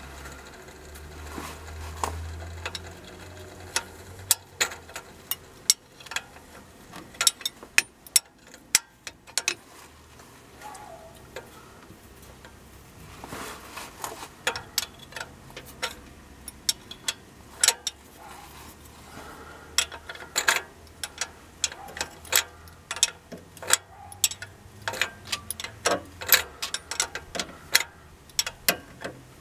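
Hand ratchet clicking in irregular runs of quick sharp clicks, working loose the 15 mm bolts on a serpentine belt tensioner.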